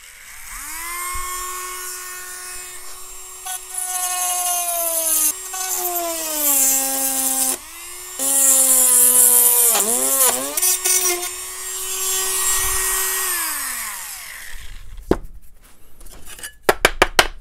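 Proxxon rotary tool spinning a drill bit used as a router, cutting through soft aluminium sheet along a line of drilled holes: a motor whine with a hissing grind, its pitch sagging several times as the bit bites into the metal. The motor winds down a few seconds before the end, followed by a few sharp clicks.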